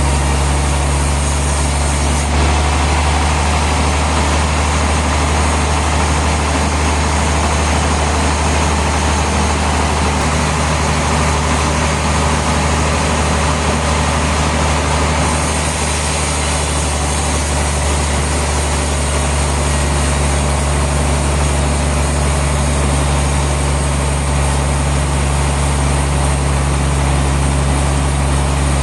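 Sawmill machinery running steadily: a loud, constant engine-like hum with a deep drone underneath.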